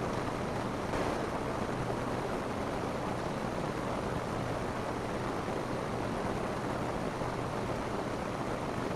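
Steady rain falling on a roof, an even hiss and patter that briefly swells slightly about a second in.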